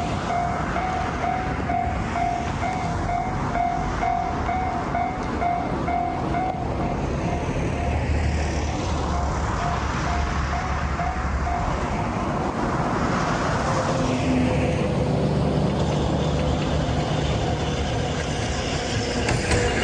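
Railroad crossing warning bell ringing in a fast, even repeated clang, fading out about halfway through, over the continuous rumble and rattle of a train.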